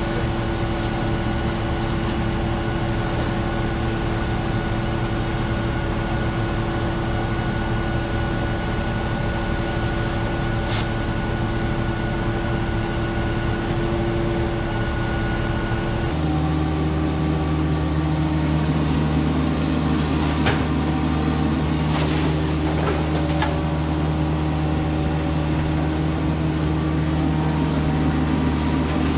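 Septic pump truck's engine and vacuum pump running steadily, drawing out the old septic tank through the suction hose. About 16 seconds in the drone changes to a deeper hum, with a few faint knocks after it.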